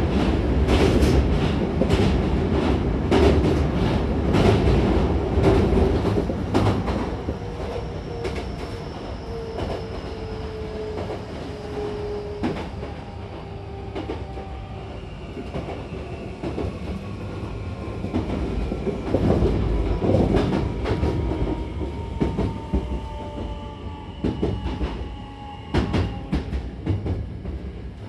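Hankyu 9000-series electric train heard from inside the car, wheels clacking over rail joints and points. From about a third of the way in, the electric motors' whine glides steadily downward and the running noise quietens as the train slows.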